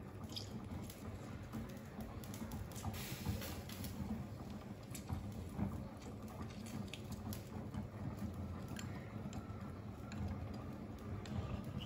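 Lime halves squeezed by hand over a metal spoon into a small ceramic bowl of dipping sauce: faint wet squelching and dripping, with scattered light clicks of the spoon against the bowl, over a low steady hum.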